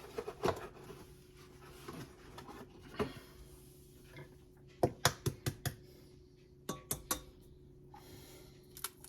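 Utensil clinking and tapping against a mixing bowl while cookie dough ingredients go in: scattered single clicks, then a quick run of about six taps about five seconds in, and a few more near the end.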